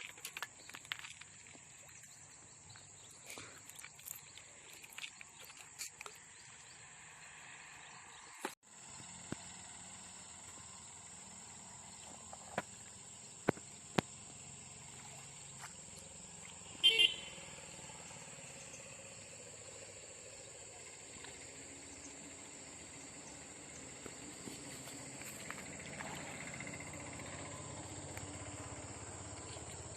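Steady high-pitched insect drone, briefly breaking off once near nine seconds in, with scattered small clicks and a short chirp about seventeen seconds in.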